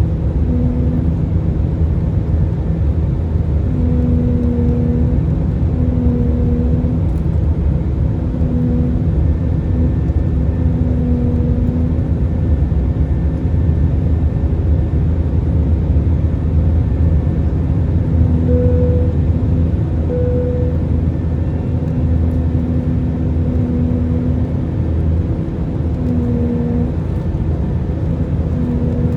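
Airbus A319 cabin noise while the airliner flies: a loud, steady low rumble from the engines and airflow. Over it, a low hum swells in and out for about a second at a time, several times. This is the weird humming the passenger could not identify.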